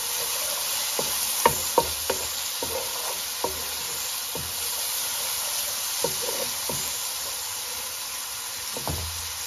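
Chopped onions and ginger-garlic paste sizzling steadily in hot oil in a metal wok, at the stage where the paste's raw smell has cooked off. A wooden spoon stirs them, with scattered taps and scrapes against the pan.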